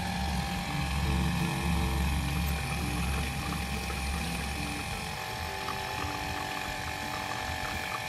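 Caffino Italia mini portable espresso machine's electric pump running steadily, forcing water through the coffee as a shot of espresso streams out. It has a low hum with a hiss over it, and the hum eases off about halfway.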